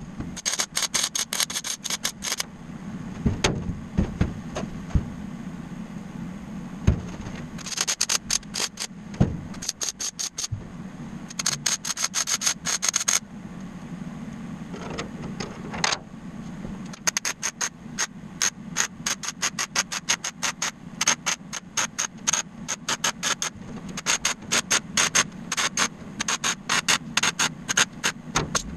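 Electric arc welding on stainless steel sheet panels: bursts of rapid, even crackling pulses, each a second or two long, broken by short pauses as the welder stops and starts.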